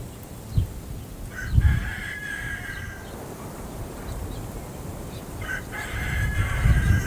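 A weathered swing creaking twice, each a drawn-out squeal of about a second and a half, over wind gusting on the microphone.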